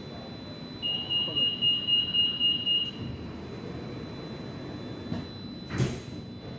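Metro train's door-closing warning: a loud, high-pitched rapid beeping for about two seconds, followed near the end by a single thud as the doors shut, over the low hum of the stationary train.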